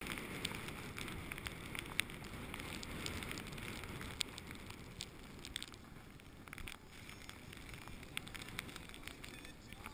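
A board sliding and scraping over snow, heard from a camera riding along the run, with wind rumbling on the microphone and scattered sharp clicks.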